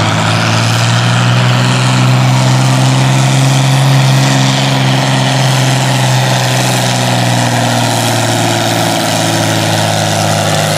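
John Deere farm tractor's engine running flat out under heavy load as it drags a weight-transfer sled, holding a steady, deep pitch.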